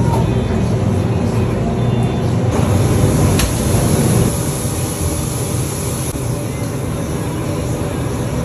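Steady low mechanical hum with faint voices in the background.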